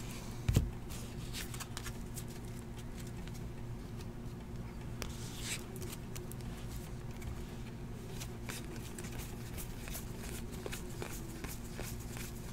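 A thump about half a second in, then Donruss basketball trading cards being flipped through by hand: a run of faint soft clicks over a steady low hum.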